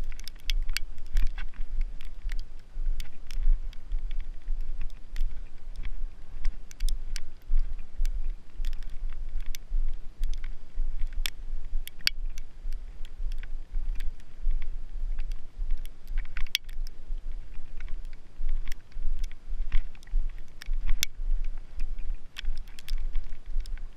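Footsteps crunching through snow in rubber boots: many sharp, irregular crunches and squeaks over a constant low rumble.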